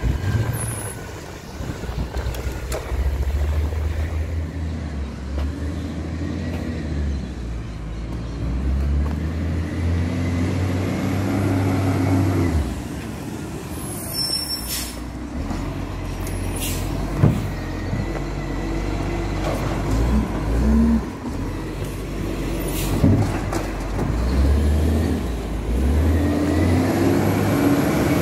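Diesel engine of an Iveco Acco side-loader garbage truck pulling away and climbing through its gears, then running slower with several short, sharp air-brake hisses as it stops and starts between bins. The engine grows louder again near the end as the truck comes toward the microphone.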